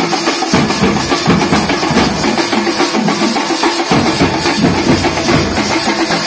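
A drum band of large steel-shelled drums beaten with sticks in a fast, dense, loud rhythm. The deep low beats drop out for a moment half a second in and again about four seconds in.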